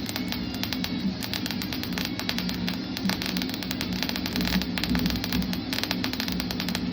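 Electric arc welding: a steady electrical hum under a dense, irregular crackle from the arc.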